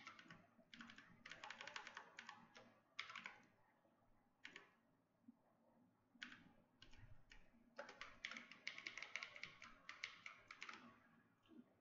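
Faint typing on a computer keyboard: short runs of quick key clicks broken by pauses, with a longer, denser run near the end.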